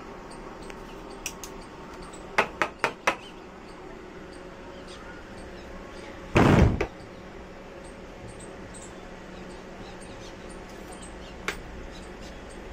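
Hand work with bamboo pieces and tools: a quick run of four sharp taps a couple of seconds in, then one loud clattering noise lasting about half a second about halfway through, and a single click near the end, over a steady background hum.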